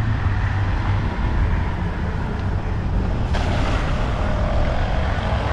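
Boat engine running steadily with a low rumble, with noise from wind or water over it that grows a little louder about three seconds in.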